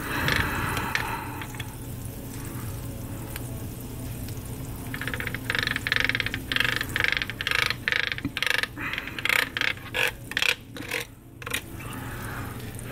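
Butter sizzling as a stick of it is rubbed across the hot plate of a Foreman electric grill, with fritter batter frying on it. Through the middle the sizzle comes in short, uneven bursts as the butter touches down, and it fades near the end.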